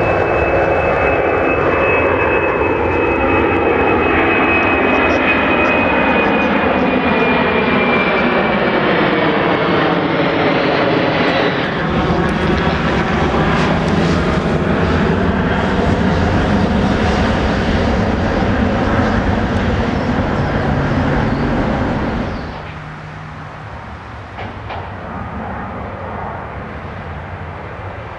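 Boeing 747-400's four jet engines at climb power passing overhead: a loud, steady jet noise with a high whine that slowly falls in pitch and sweeping tones as the aircraft goes over. About 22 seconds in it cuts to a quieter, steady jet rumble from another 747 taking off.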